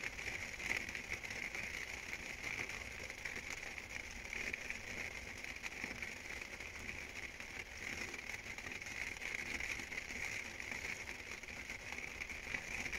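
Rain falling, a steady crackling patter.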